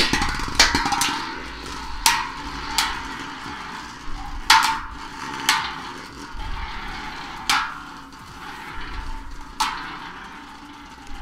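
Beyblade Burst tops, including Doomscizor, launched into a plastic sled: a sharp launch crack at the very start, then a steady whir from the two tops spinning on the plastic, with about eight sharp clacks at irregular intervals as they collide.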